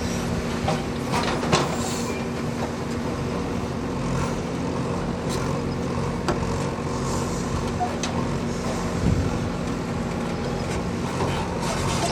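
Backhoe loader's diesel engine running steadily, with occasional sharp knocks.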